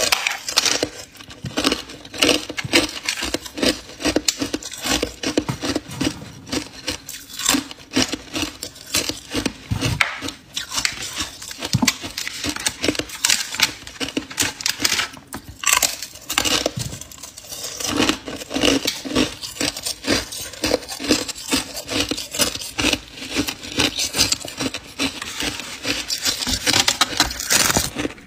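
Ice being chewed: a dense, irregular run of crisp crunches and cracks that goes on with hardly a break.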